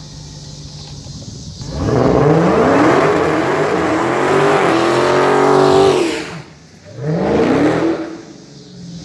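Dodge Charger Hellcat's supercharged 6.2-litre V8 idling, then revving hard for about four seconds with rising pitch as the rear tyres spin in a burnout. It drops off briefly, revs again for a shorter pull, and settles back to idle near the end.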